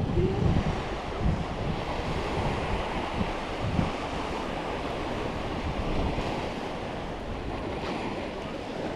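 Waves washing onto a beach, with wind gusting on the microphone, strongest in the first second.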